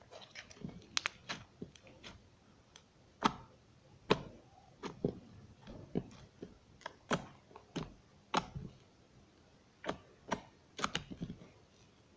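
Glossy slime made from white glue being squeezed and pressed by hand, giving irregular sharp clicks and pops, a few of them louder.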